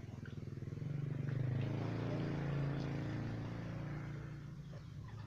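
A motor vehicle's engine running steadily, swelling louder from about a second in and easing off toward the end.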